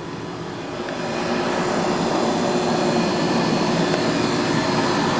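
Steady engine drone with a constant hum, growing louder over the first couple of seconds and then holding steady.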